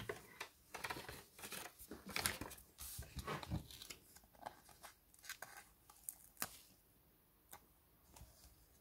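Small plastic toy parts being handled: the sword is pressed into a Playmobil knight figure's hand with a quick flurry of clicks and rustles in the first few seconds, then scattered single clicks and taps as the figure is set down.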